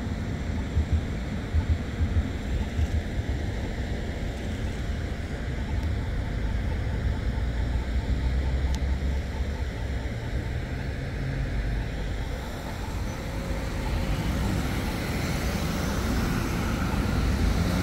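Road traffic on a city street: a steady rumble of passing cars, growing louder near the end.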